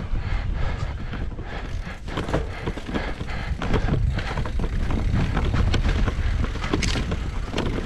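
Electric mountain bike riding down a rooty dirt trail: tyres rolling over dirt and roots under a steady low rumble, with frequent knocks and rattles from the bike as it goes over the bumps.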